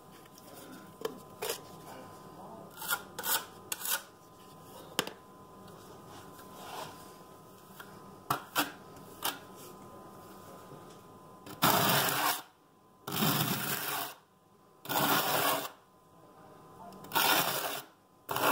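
Notched trowel scraped through fresh thinset mortar on a wall, combing it into ridges: four long scraping strokes of about a second each in the second half, after a few faint taps and clicks.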